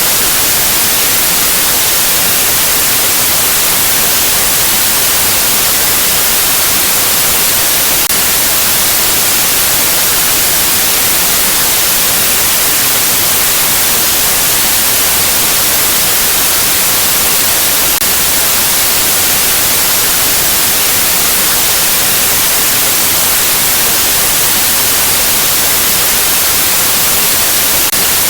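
Steady white-noise static, an even hiss across all pitches, brightest in the treble, unchanging throughout.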